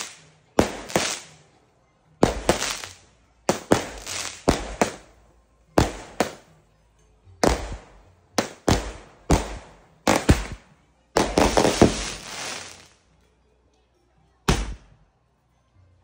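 A 25-shot firework cake firing: a string of sharp bangs, each dying away quickly, about one or two a second. They crowd into a dense run a little past two-thirds through, then a single last bang near the end.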